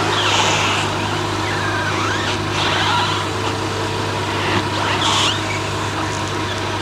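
BMW 640i's turbocharged straight-six idling steadily while the front wheels are steered, with a few short hissing sounds. There is no clicking from the front wheels: the new wheel bearings have cured the noise.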